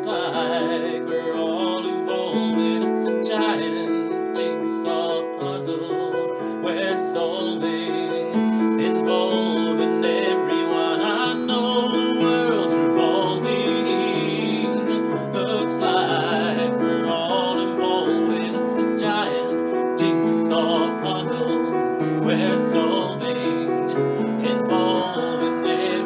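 Solo piano played with both hands: an instrumental passage of held chords that change every second or two, with a melody picked out above them.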